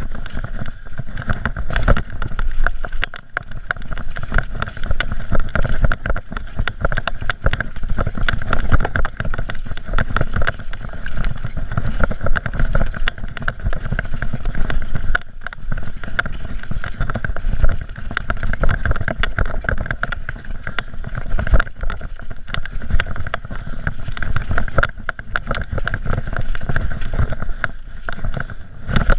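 Downhill mountain bike descending a rough dirt trail at speed, heard through a GoPro: a constant rumble of tyres on the ground with dense, irregular rattling and knocking as the bike hits bumps and roots.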